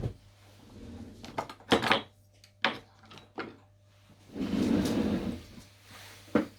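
Napoleon mantle clock being handled as its pendulum is fitted: a series of sharp wooden and metal clicks and knocks, the loudest about two seconds in, and a longer rubbing scrape a little past halfway.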